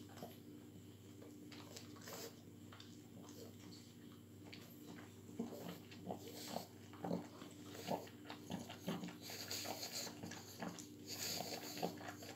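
Ten-day-old pug puppies nursing on their mother, making short irregular puppy noises that come more often from about halfway in, over a steady low hum.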